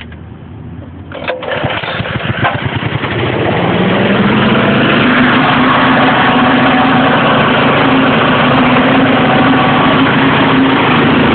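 Small petrol engine of a Leader PPV fan with its stock OEM muffler starting about a second in, catching and speeding up over a couple of seconds. It then runs steadily at full speed, driving the fan.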